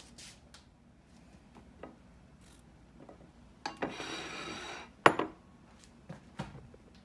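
A ceramic bowl scraping across a kitchen countertop for about a second, then set down with a sharp clunk, among lighter knocks of dishes and utensils.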